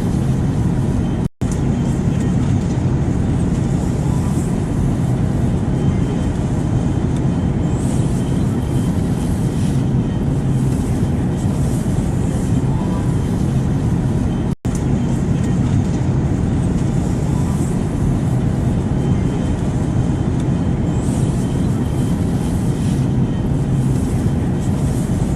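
Airplane noise: a steady, even drone, heaviest in the low end, that cuts out for an instant twice, about a second in and again near the middle.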